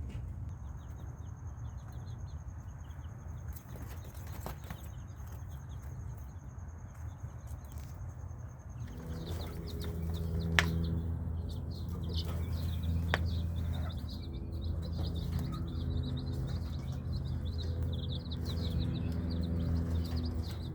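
Baby chicks peeping, many short high cheeps, over a low rumble. About nine seconds in, a steady low hum joins and the peeping grows busier.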